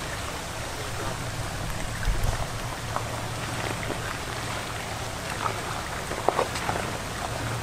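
Toyota 4Runner's tyres crunching slowly over loose rocks and gravel on a dirt trail: scattered crackles and pops over a low, steady engine hum, with a low thump about two seconds in.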